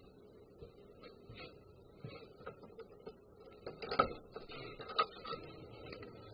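Handling noise right at a home security camera's microphone: faint knocks as someone approaches, then sharp clicks and knocks about four and five seconds in as the camera is touched or grabbed.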